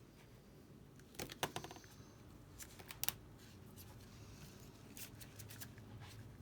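Quiet handling sounds as the replacement screen and its adhesive liner are worked on: three short clusters of small clicks and rustles, about a second in, around three seconds in, and around five seconds in.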